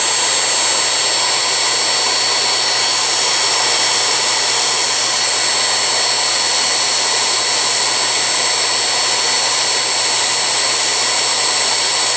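Vintage Milwaukee 0950-1 half-inch corded electric drill running steadily in forward with no load, a constant motor whine. It holds about 512 RPM, under its rated 600, which the owner puts down to the grease inside probably being a little thick.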